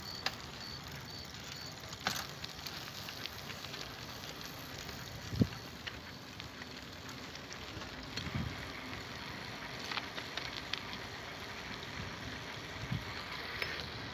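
Clicks and knocks of a bicycle being handled during a repair, over a steady hiss. A louder low thump comes about five seconds in, and a faint even ticking is heard in the first second.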